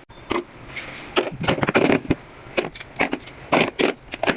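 Metal hand tools clinking and rattling as they are handled and rummaged through, a quick irregular run of sharp clicks and knocks.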